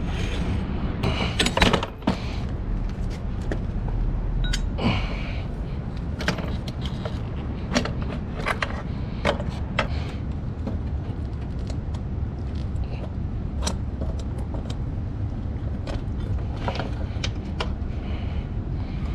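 Scattered clicks, knocks and metal clinks of hand tools at work taking the wheel off a motorcycle, over a steady low rumble.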